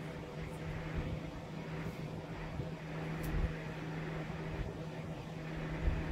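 Steady low hum with background hiss, broken by a couple of faint clicks of handling, about three and a half and six seconds in.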